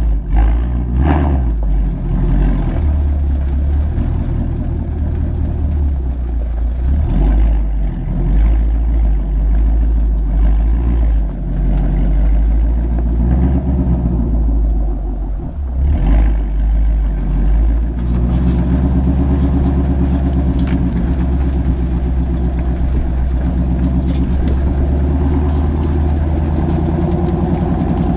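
Ford Shelby GT350's 5.2-litre flat-plane-crank V8 running through its exhaust while being driven, the note rising and falling with the throttle, then settling into a steady, even note about two-thirds of the way in.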